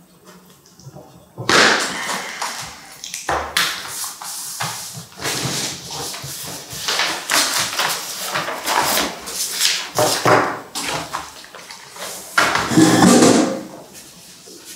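Sheets of paper rustling and being handled in a string of bursts, loudest near the end.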